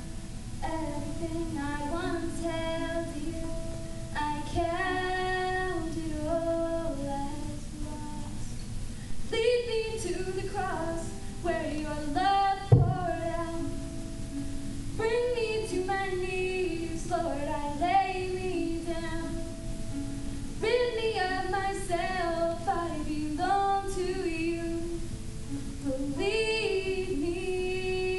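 A girl singing a slow worship song into a microphone, accompanying herself on guitar, with a single sharp thump about halfway through.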